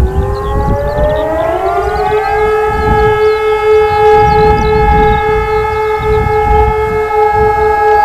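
More than one old motor-driven civil defence siren heard from afar. One is already holding a steady tone while another winds up, its pitch rising over about two and a half seconds, and then both hold a steady, sustained wail.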